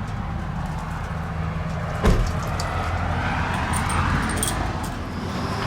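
Vehicle engine and road noise heard from inside a moving van: a steady low rumble, with a single sharp knock about two seconds in.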